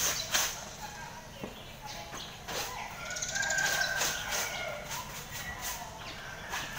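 Light clicks and knocks of plastic toys as a toy fishing rod is worked over a basin of toys, with a held bird call, like a hen's cluck, for over a second around the middle and again near the end.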